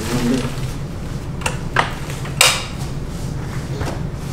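Sharp plastic-and-metal clicks and clacks from a pushchair's frame and fold mechanism being worked by hand, three quick ones in the middle, as a fold is attempted with a ride-on board fitted.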